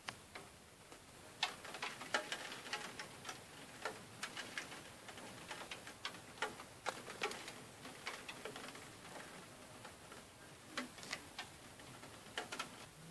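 Raindrops tapping on the glass of a Velux roof window: irregular sharp ticks, a few to several a second, some louder than others.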